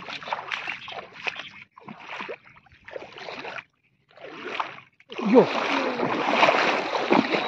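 Water swishing and splashing as people wade through shallow creek water, sweeping a bamboo-pole net along: short swishes about once a second, then steadier, louder sloshing from about five seconds in.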